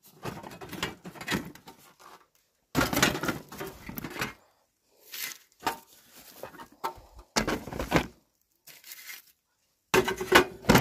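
Handling noise from a portable gas stove and its plastic carry case: the case opened and the metal stove lifted out and set down, heard as several separate bursts of knocking and rattling.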